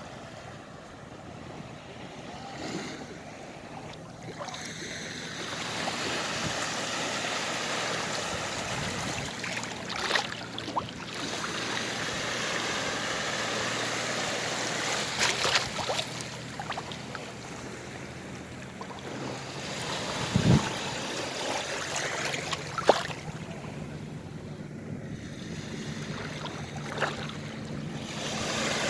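Sea waves washing onto the shore, a steady rushing that swells and eases over several seconds, with a few short sharp knocks along the way.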